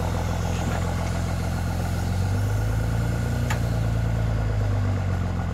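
Homemade forwarder's engine running steadily while its hydraulic log crane works. About two seconds in, the engine note changes and grows stronger as the crane takes load, then settles back near the end, with a single knock about three and a half seconds in.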